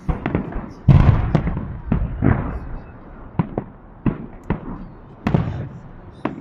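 Aerial fireworks shells bursting overhead: an irregular run of sharp bangs, about a dozen, with the loudest and deepest boom about a second in, trailing a low rumble.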